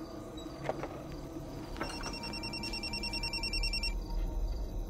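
Mobile phone ringing: a rapid electronic trill at a fixed pitch. It comes back about two seconds in, rings for about two seconds and stops again, with a couple of small knocks just before it resumes. It is the unanswered phone ringing on a call.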